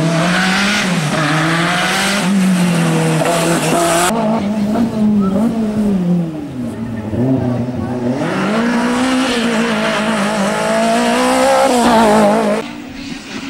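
Rally car engines revving hard as the cars run through at speed, the pitch climbing and dropping over and over with the throttle and gear changes. The engine sound changes abruptly about four seconds in and again near the end.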